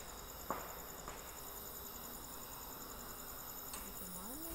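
Crickets chirping steadily in the night, a high, rapid, even pulse, with a single sharp click about half a second in.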